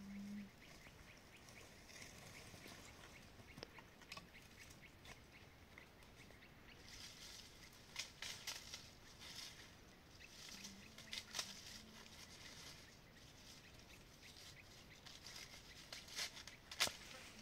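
Faint rustling and crackling of dry leaves and twigs being handled, with scattered light clicks, a sharper snap near the end, and a short low hum about eleven seconds in.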